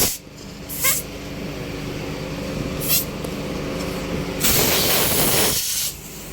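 Compressed air hissing from a tyre-shop air line: two short hisses, then a louder one lasting about a second and a half near the end, over a steady low hum.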